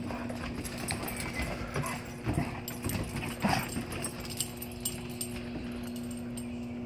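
Dogs' claws clicking and tapping on wooden deck boards as several dogs move around sniffing each other, with a couple of short, louder noises about two and a half and three and a half seconds in, over a steady low hum.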